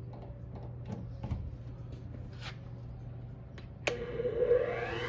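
A few light handling clicks and knocks, then a sharp switch click nearly four seconds in as a Hercules bench grinder's motor starts, its whine rising as the wheels spin up; it is slow to get up to speed.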